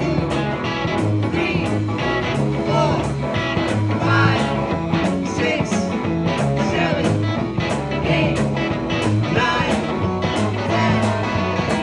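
Live garage R&B band playing a 12-bar blues number: electric guitars, bass and keyboard over a steady drum beat.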